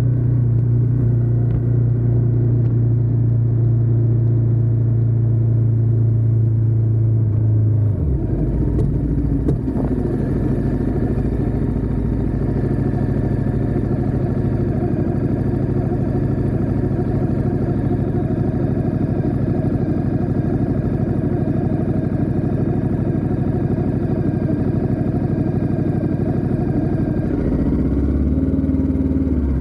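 Ducati Diavel 1260S's V-twin engine running under way, heard from a camera on the back of the bike. Its note is steady, shifts suddenly about eight seconds in, and changes again with a rising and falling pitch near the end.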